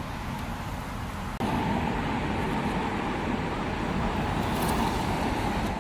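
Steady road traffic noise, a continuous rush of passing vehicles that steps up abruptly in loudness about a second and a half in.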